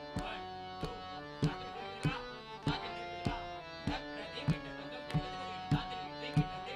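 Pakhawaj barrel drums and a harmonium playing devotional music: the harmonium sustains held chords and a melody while the drums keep a steady beat, with a deep stroke about every 0.6 seconds.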